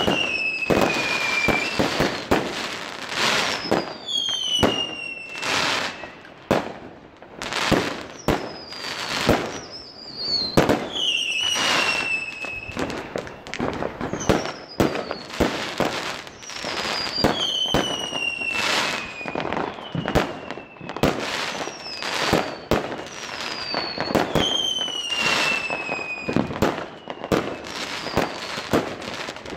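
Consumer aerial fireworks going off in rapid succession: a continuous run of sharp bangs and crackles, with a whistle falling in pitch every second or two as shells rise and burst.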